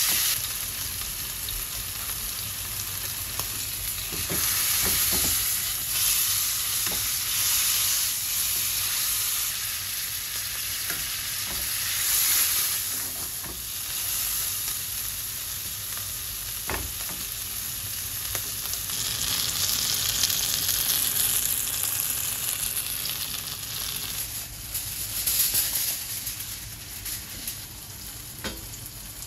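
Beef sizzling steadily as it sears in oil in a hot nonstick frying pan. Now and then metal tongs click against the pan as the meat is turned.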